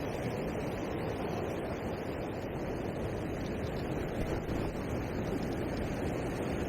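Steady rushing noise of ocean surf on a rocky shore mixed with wind buffeting the microphone.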